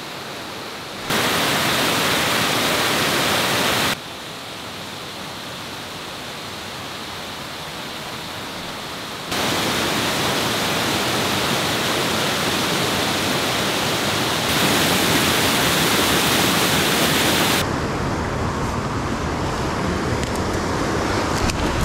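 Rushing water of a waterfall: steady white-water noise that jumps abruptly louder or softer several times as the clips change.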